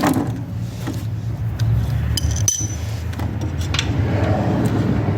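Small metal clinks and scrapes of a wrench on a motorcycle transmission's drain plug as the loose plug is worked out, with a brief high ring about two seconds in, over a steady low hum.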